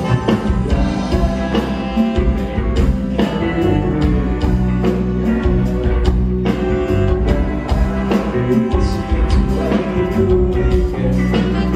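A live band playing a pop ballad-style song with a regular drum beat and sustained instrument parts, during an instrumental stretch between sung lines.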